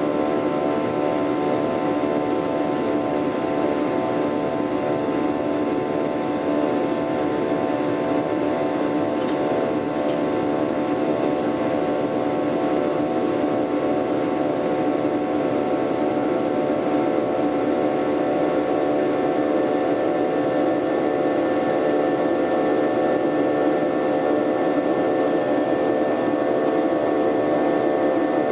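Jet airliner's engines heard inside the passenger cabin during the climb after takeoff: a steady drone with several held tones.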